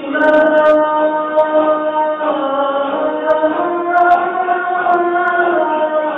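A group of voices chanting Sufi dhikr together, in long held notes that shift pitch every second or two.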